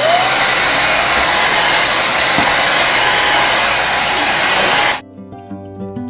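Vytronix 3-in-1 vacuum cleaner's motor switched on, whining up to speed and running loudly and steadily for about five seconds, then cut off suddenly. Guitar music fills the last second.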